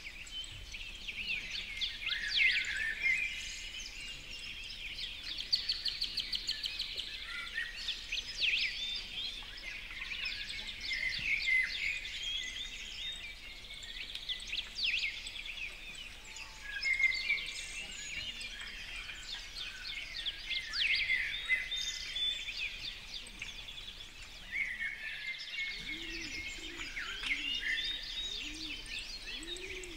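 Many songbirds chirping and trilling at once, their songs overlapping in a steady chorus. Near the end a lower call joins, repeating several times.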